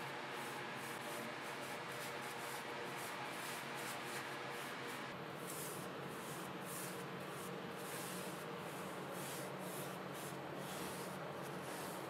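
Bristle paintbrush strokes scraping across rough pallet-wood boards as wood stain is brushed on, a quick brushy swish repeated about two or three times a second.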